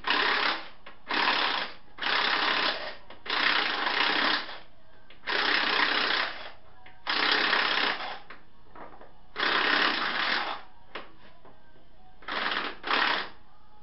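Power impact wrench hammering in about nine short bursts of under a second each, with brief pauses between, working a bolt loose on the engine mount.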